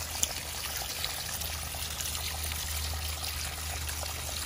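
Running water trickling and pouring steadily, with scattered light clicks, as fossils are rinsed off.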